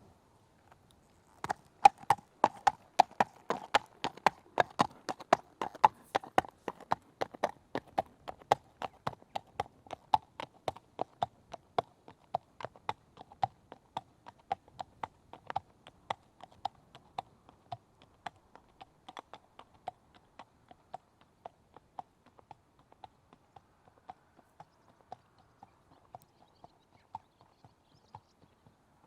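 A horse trotting, its hooves clip-clopping in an even, quick rhythm. The hoofbeats begin about a second and a half in and grow gradually fainter over the second half.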